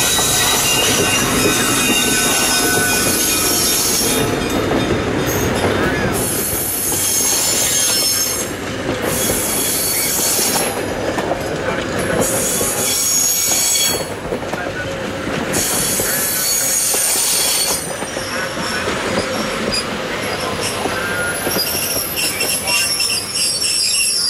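CB&Q EMD E5 diesel locomotive, driven by twin V12 engines, passing close by, followed by its stainless-steel passenger cars rolling past with steel wheels squealing and clattering on the rails.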